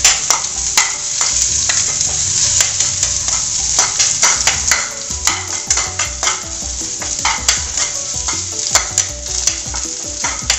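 Chopped garlic sizzling in hot coconut oil in a pan, stirred with a spatula that scrapes and clicks against the pan many times.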